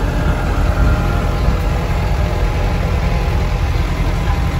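Tractor engine running steadily as it tows a passenger trailer across sand, heard from the trailer as a continuous low rumble.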